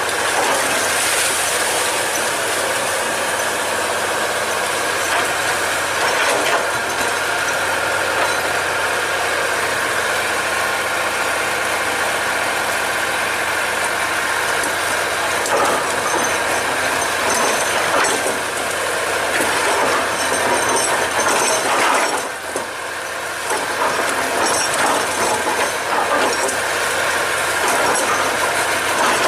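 Excavator working, its diesel engine running steadily under load, with a brief drop in level about three quarters of the way through.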